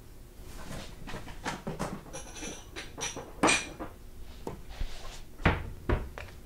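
Irregular knocks and clicks, a few of them with a short ringing metallic clink, and two heavy thumps close together about five and a half seconds in.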